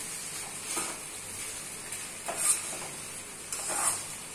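Metal spatula stirring vegetable fried rice in a kadhai over a steady faint sizzle. It scrapes against the pan three times, the loudest about halfway through.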